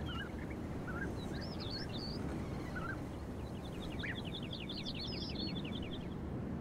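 Songbirds singing over a steady low background rumble: scattered short chirps and whistles, then a fast trill of about six notes a second lasting a couple of seconds from about three and a half seconds in.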